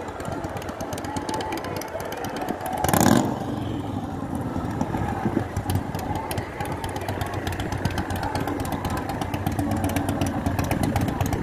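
Several motorcycle engines running at idle together, a steady low hum, with a short loud burst of noise about three seconds in.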